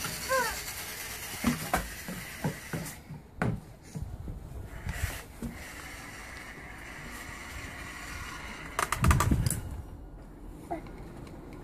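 Toy radio-controlled monster truck driving, its small electric motor and gears whirring, with scattered clicks and knocks and a louder clatter of knocks about nine seconds in.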